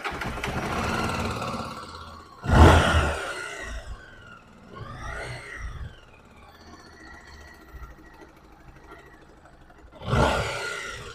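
Honda XRE 300 single-cylinder engine running and revved: sharp blips about two and a half seconds in and again near the end, and a rise and fall in pitch around five seconds, with quieter running in between. The engine noise is the one traced to a worn, slack cam chain.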